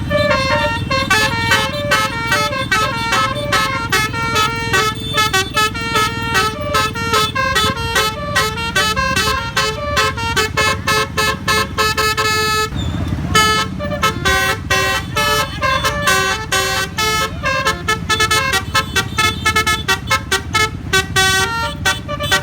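Basuri-style telolet air horn on the "Winspector" bus playing a fast melody of short, stepped notes, over steady low engine and road noise. The tune breaks off briefly for a short burst of noise about 13 seconds in.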